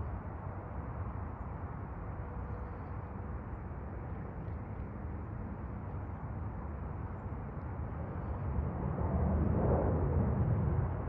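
A steady low rumble of wind and distant city traffic. It grows louder about nine seconds in.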